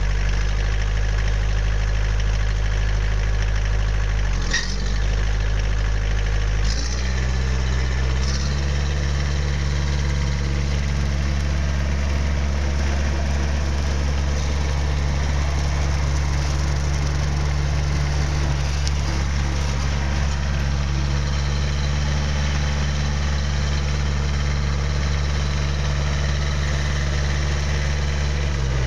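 Massey Ferguson 1643 compact tractor's diesel engine running steadily. About seven and eight seconds in its note changes in two steps, with a few brief clicks around then, and it then runs evenly.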